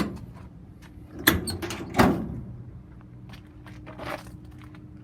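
Metal compartment doors on a truck's utility bed being opened and shut, with two sharp knocks a little over a second in and at about two seconds, and a fainter clack near four seconds.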